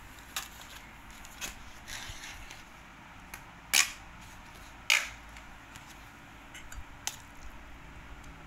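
A metal spoon clinking and scraping against a steel bowl while scooping mashed banana batter: a scattering of sharp clinks, the two loudest near the middle about a second apart.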